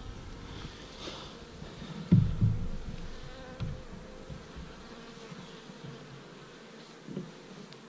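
Carnica honeybees buzzing steadily over an open hive, with a few soft knocks as a comb frame is handled and set back into the hive box, the loudest about two seconds in.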